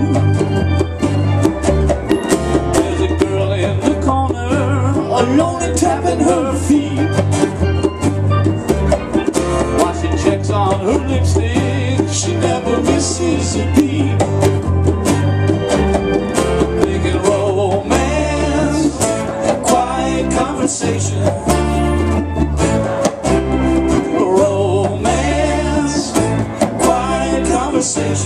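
Live band playing a song: electric bass, strummed and picked acoustic guitars and hand drums keep a steady beat.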